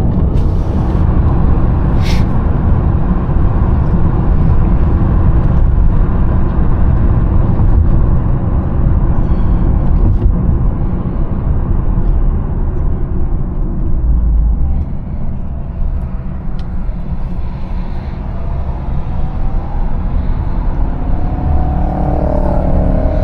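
Twin-charged Mercedes driving, a loud, steady low rumble of engine and road noise that eases off for a few seconds past halfway, then builds again near the end.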